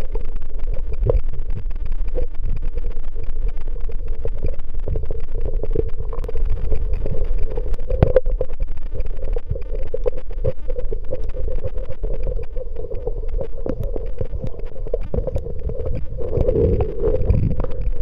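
Muffled underwater noise picked up by a camera held under the sea: a steady low rumble with a constant hum, scattered clicks and crackles, and some burbling near the end.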